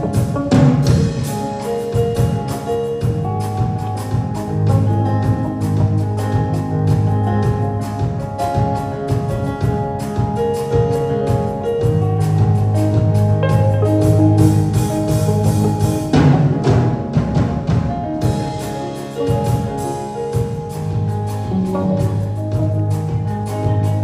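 Live church band playing: keyboard chords and electric guitar over a steady drum beat, with deep bass notes.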